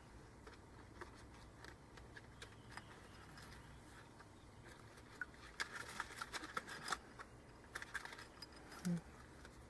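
Faint scattered clicks and light rustling of plastic cards and a wallet being handled and sorted, busier in the second half.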